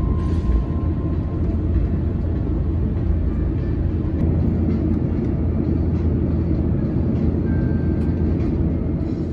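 Steady, loud low rumble of airliner cabin noise inside an Airbus A350-900.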